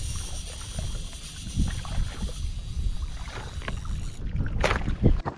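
Wind rumbling on the microphone at the water's edge, with scattered small knocks and scrapes. A sharper noisy burst comes about four and a half seconds in, and the sound cuts off suddenly near the end.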